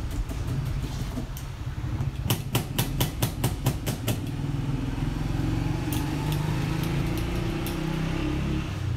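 A motor running steadily with a low hum, with a quick run of about nine sharp clicks, roughly five a second, a couple of seconds in.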